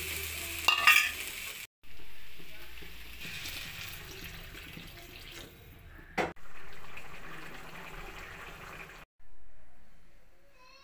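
Banana flower curry sizzling and bubbling in a hot pan, heard in a few short cuts, each hiss starting loud and fading away.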